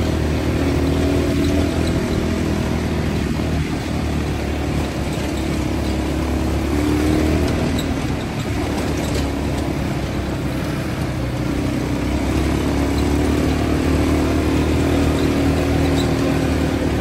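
ATV (quad bike) engines running as the quads ride along a rough track, the engine note rising and falling a little with the throttle.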